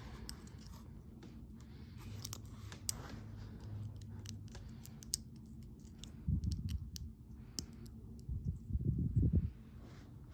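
Small plastic Lego pieces being handled and clicked together: scattered sharp clicks, with two louder stretches of handling noise around six and nine seconds in.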